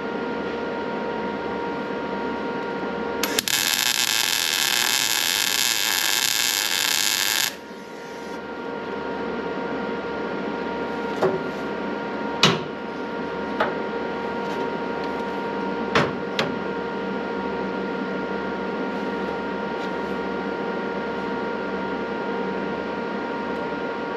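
Electric welding arc running steadily for about four seconds, starting a few seconds in, over a constant machine hum. A few sharp metal clicks follow a few seconds after the arc stops.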